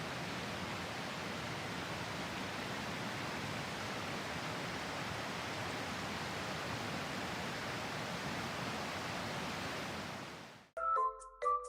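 A steady, even rushing noise that fades out about ten seconds in; then bright mallet-percussion music begins.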